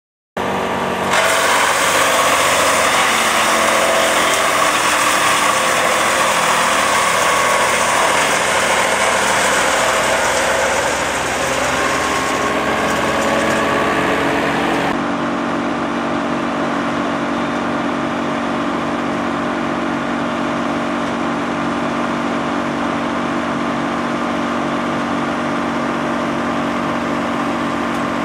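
Wood chipper-shredder running steadily. For about the first half a harsh, noisy rush sits over the engine note, then it drops away suddenly, leaving a steadier machine hum.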